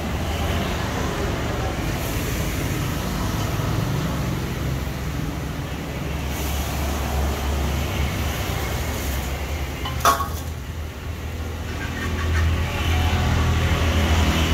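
Steady low rumble of street traffic, with a hiss of banana fritters frying in hot oil. A single sharp knock about ten seconds in.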